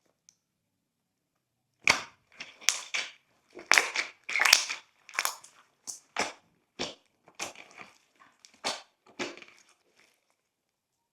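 Glossy slime being squeezed and pressed by hand: a run of wet squishes with crackles and bubble pops, starting about two seconds in and stopping shortly before the end.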